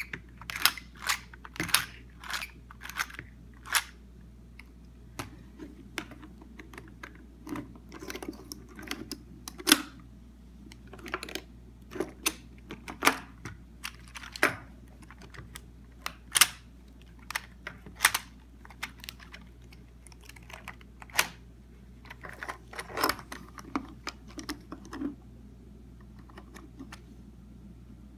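Irregular clicks and clacks of a 3D-printed eNABLE Phoenix v2 prosthetic hand being worked, its plastic fingers and joints clicking and tapping, some in quick clusters; they stop about 25 seconds in.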